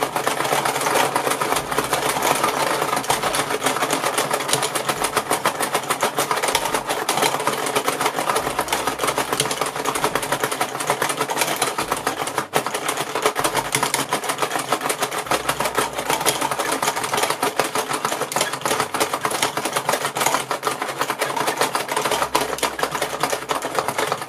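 Rapid, continuous plastic clattering and ticking from a Paw Patrol pup race game as its buttons are worked and the pup figures run up and down their tracks, knocking plastic balls about.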